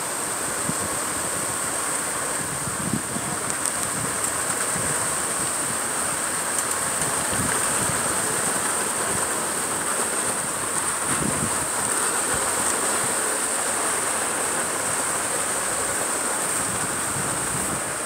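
Concrete boom pump truck running steadily, pumping concrete through the boom's end hose into wall forms.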